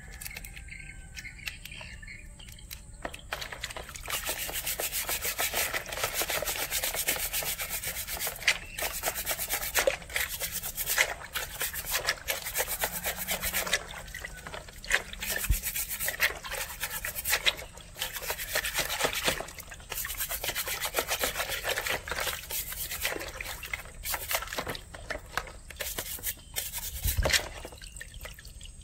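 Stiff plastic scrub brush scrubbing a raw crab's shell in a basin of water: fast, rasping back-and-forth strokes that start about three seconds in.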